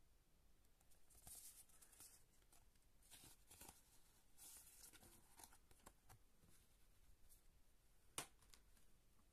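Faint rustling and sliding of stiff printed art cards being shuffled by hand, then a single sharp click about eight seconds in.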